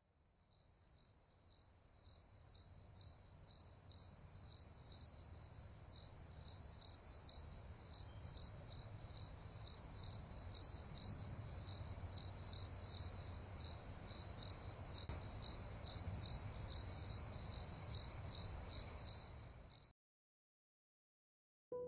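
Crickets chirping steadily, roughly three chirps a second, over a low steady rumble: a night-time ambience. It fades in over the first few seconds and cuts off abruptly near the end.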